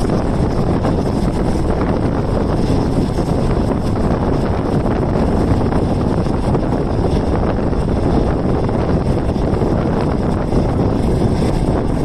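Steady wind rush and running rumble of a moving passenger train, heard from an open window of a non-air-conditioned green coach.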